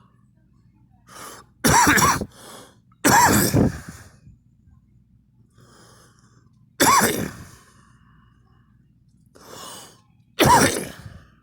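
A person coughing in four bouts a few seconds apart, the first a quick double cough, with quieter breaths drawn in between them.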